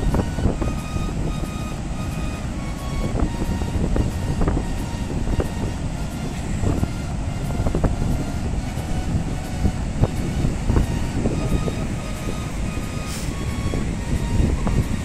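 Ocean surf breaking and washing over a flat rock shelf: a steady, rumbling wash of waves, heavy in the low end.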